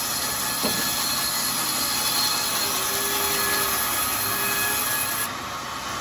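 Homemade sawmill blade cutting lengthwise through a teak board: a steady sawing noise that eases off about five seconds in as the cut ends.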